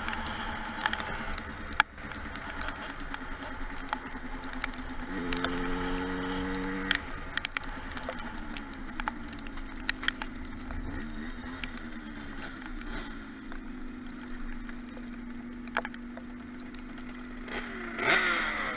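50cc two-stroke motorbike engine with a Metrakit exhaust running on the move, its pitch rising and falling with the throttle, then holding a steady note. Sharp clicks sound throughout, and a louder burst of noise comes near the end.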